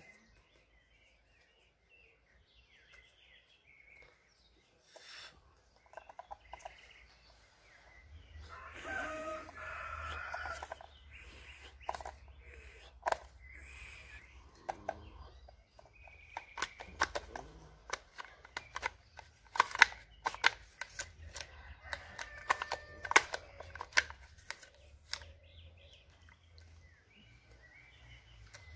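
Animal calls in the background, with a longer, louder call about eight seconds in, and many scattered sharp clicks and taps from about twelve seconds on.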